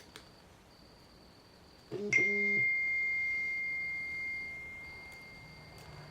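Phone text-message alert: a short buzz about two seconds in, together with a single bright chime that rings on and slowly fades over several seconds.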